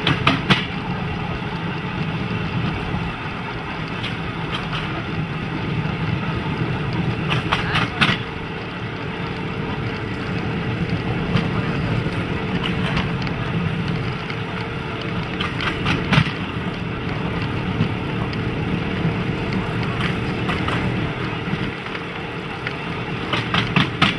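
Small motorised rail trolley running along narrow-gauge track: a steady engine and running noise, with quick clusters of clacks every few seconds as the wheels cross rail joints.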